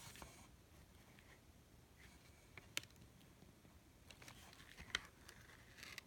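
Near silence with a few faint clicks and soft paper rustles as a paper pop-up card's pull tab is worked, its flap failing to flip.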